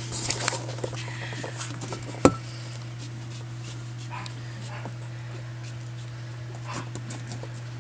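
Black pug puppy moving about on fleece bedding: soft rustles and scratchy clicks, with one sharp knock about two seconds in, over a steady low hum.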